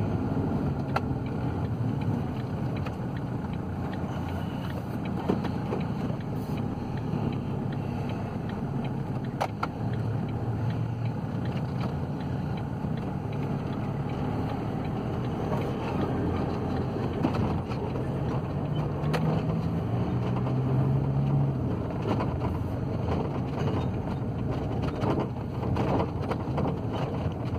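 Ford Transit van's diesel engine and road noise heard from inside the cab while driving, the engine note climbing for a few seconds past the middle as the van picks up speed.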